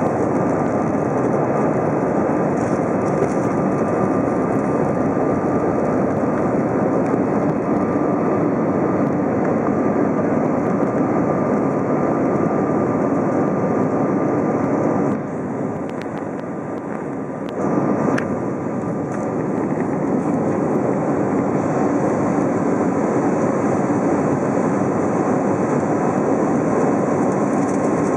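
Jet engines and rushing airflow heard inside an Airbus A320's cabin during the climb just after takeoff: a steady, dense rush with a faint steady whine in it, dipping briefly about fifteen seconds in before coming back.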